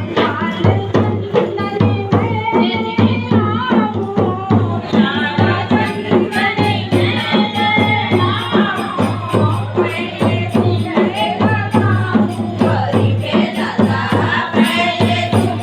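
Hindi devotional Ganesh bhajan: a woman's voice singing over fast, steady hand percussion with a jingling rattle.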